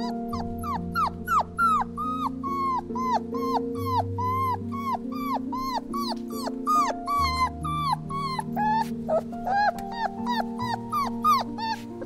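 A dog whimpering in a rapid string of short cries, about three a second, each dropping in pitch, becoming shorter and more irregular near the end. Soft background music with sustained chords plays underneath.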